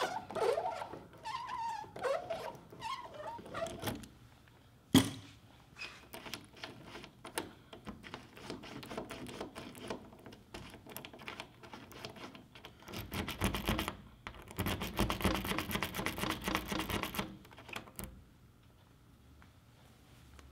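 Seized truck-topper T-handle lock being worked loose: metal squeaking as the handle is twisted with locking pliers, a single sharp clack about five seconds in, then scattered clicks and a run of rapid metallic rattling as the key is jiggled in the lock cylinder, stopping a couple of seconds before the end.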